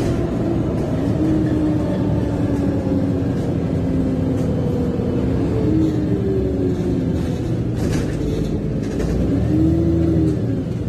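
VDL DB300 double-decker bus heard from inside the lower deck while on the move: engine and drivetrain running with a low rumble and whining tones that slowly rise and fall in pitch as the bus accelerates and eases off. A few short rattles come about eight seconds in.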